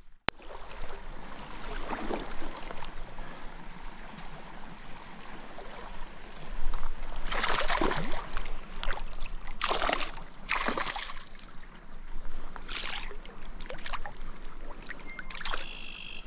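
Steady rush of a trout stream's flowing water, with a few louder splashes about halfway through.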